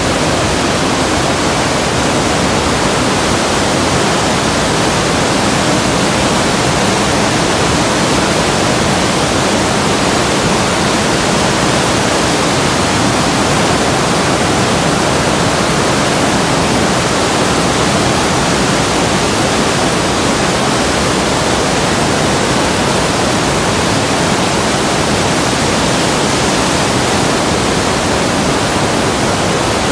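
Mountain waterfall and whitewater rapids fed by snowmelt, rushing loudly over rocks close by in one steady, unbroken sound.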